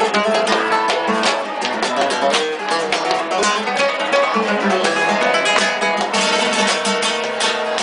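Flamenco guitar playing solo: a nylon-string acoustic guitar played in quick, busy phrases of plucked notes and strums.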